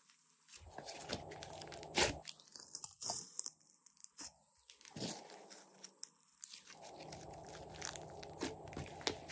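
Hands kneading, pressing and stretching a large mass of glossy slime, making many irregular small pops and crackles as it is squeezed and pulled apart.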